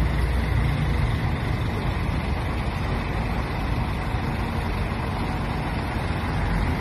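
Double-decker coach's diesel engine running close by, a steady low engine note.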